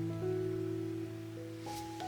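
Background music: an instrumental piece of held notes that step to a new pitch every second or so.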